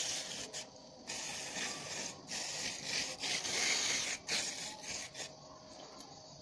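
Aerosol brake-cleaner spray hissing in a series of short bursts into the opened housing of an LPG regulator, stopping a little after five seconds.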